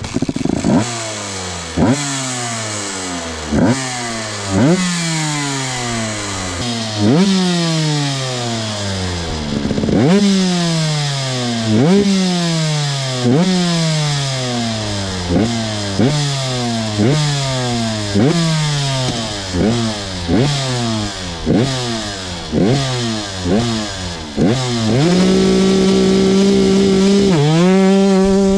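Two-stroke motorcycle engine being revved over and over: each throttle blip jumps the pitch up, then it falls slowly back, about twenty times and faster as it goes on. Near the end the revs are held steady and high for a couple of seconds, dip briefly, and are held again.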